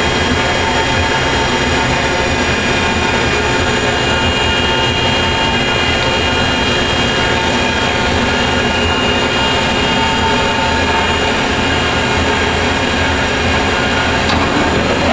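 Tornos-Bechler ENC 162 CNC automatic lathe running under power: a steady, loud mechanical hum with several steady high whines over it.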